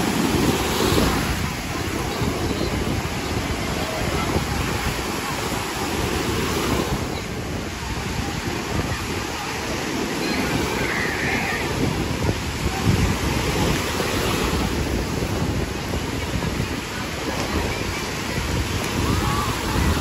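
Small waves breaking and washing up a sandy shore, with wind buffeting the microphone and the voices of a crowded beach behind.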